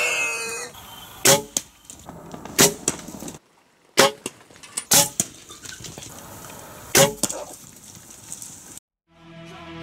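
A short pitched sound falling in pitch at the start, then a series of sharp knocks or clacks, about five, a second or so apart, broken by a brief drop to silence near the middle and another near the end.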